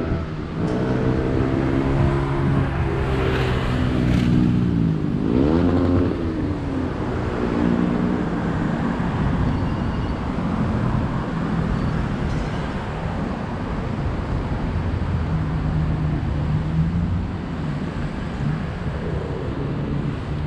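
Road traffic: a motor vehicle's engine running close by, revving up about five seconds in, then steady traffic noise with a low engine hum.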